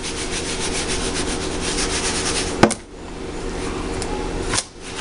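Raw chicken pieces being shaken and rubbed around in flour to coat them, a steady rapid scraping rustle. A single sharp knock comes about two and a half seconds in.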